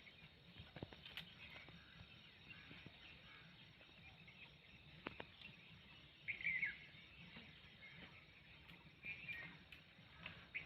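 Near silence: faint outdoor ambience, with a couple of faint clicks and a few short, faint high chirps.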